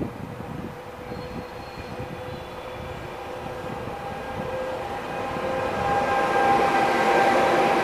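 Electric locomotive hauling a regional passenger train pulls away from the station and draws closer, getting steadily louder. Its motors give a whine that rises in pitch as it gathers speed.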